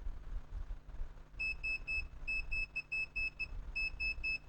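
Electronic beeper giving short, high, identical beeps in quick runs: three, then about seven, then three more, roughly five a second.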